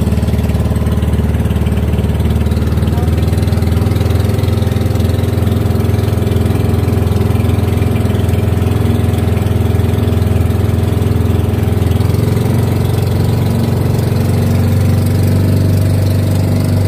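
Outrigger boat's engine running steadily under way, a loud low drone. Its note shifts slightly about twelve seconds in.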